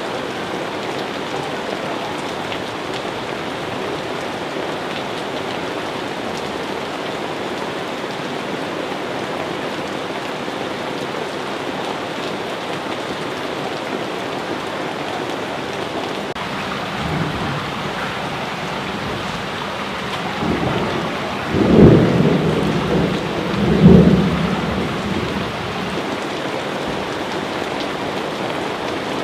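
Steady heavy rain falling, with thunder rumbling about two-thirds of the way in, in two loud peaks a couple of seconds apart.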